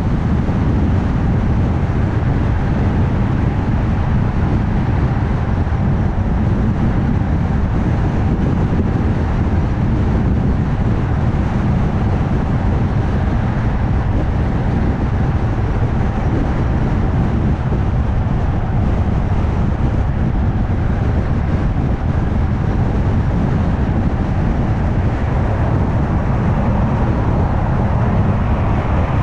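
Car cruising at highway speed: steady tyre and road noise with a low engine hum that stays even throughout.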